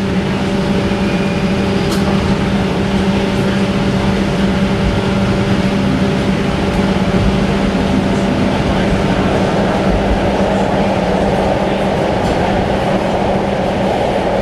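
Inside a Bombardier Flexity Outlook low-floor streetcar moving off from a stop into a tunnel: a steady hum under an even rumble of rolling noise, which grows louder about two thirds of the way in as the car picks up speed.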